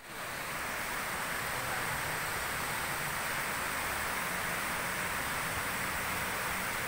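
Rushing river water running over rocks and through shallow rapids: a steady hiss that fades in over the first half-second.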